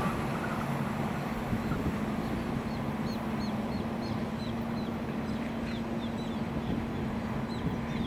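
KRL Commuter Line electric multiple unit running past at a distance, a steady low hum over an even rumble. From about three seconds in, a small bird chirps repeatedly in short, high notes.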